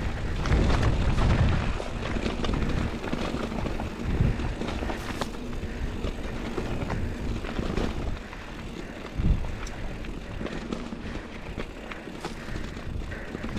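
Scott Spark 950 mountain bike rolling down a rocky dirt singletrack: tyre roar and rattle of the bike over stones, with rumbling wind on the camera microphone. It is scattered with small knocks and one harder thump about two-thirds of the way through as a wheel hits a rock.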